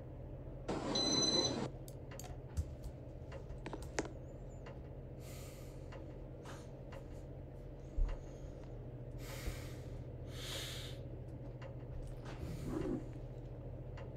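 Casablanca Victorian ceiling fan's XLP motor running with a steady low hum. Scattered small clicks and a few short breathy hisses sound over it, and about a second in there is a brief noisy burst with a thin high whistle.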